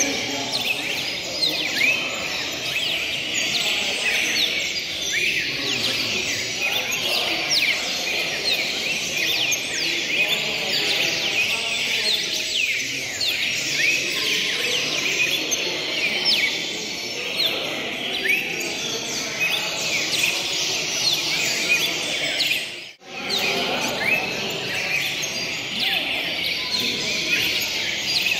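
A dense chorus of many caged songbirds singing at once, with short high chirps and trills overlapping continuously. The chorus drops out briefly about three-quarters of the way through.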